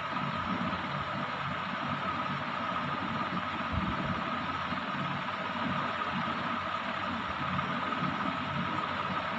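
Steady machine hum and hiss with a constant high whine running under it, without change.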